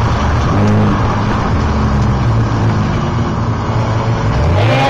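Race car engine heard from inside the cabin, running at fairly steady revs through a corner with road and wind noise. Near the end its pitch rises as the car accelerates.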